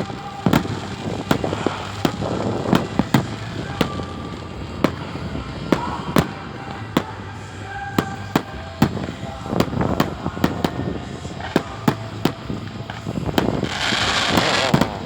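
New Year's fireworks: a continuous barrage of sharp firecracker and rocket bangs, several a second, with a longer hissing, crackling burst near the end.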